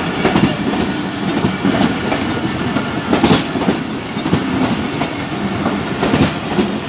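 Passenger train coaches running past close by on the adjacent track: a steady rumble of the running gear with quick, irregular clicks of steel wheels over rail joints.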